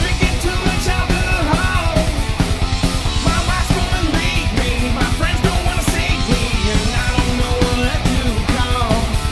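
Loud, fast rock band playing: a steady, rapid drum beat under distorted electric guitars, with a guitar line sliding up and down in pitch.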